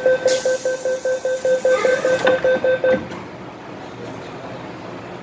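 MTR M-Train door-closing warning, a rapid beeping of about five beeps a second. The doors slide shut with a hiss and close with a knock about three seconds in, when the beeping stops.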